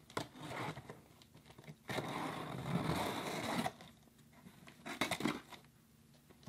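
A craft knife slicing through the packing tape on a long cardboard box: short scrapes at first, then a louder stretch of cutting and tearing lasting nearly two seconds, and a few more quick scrapes of cardboard a little before the end.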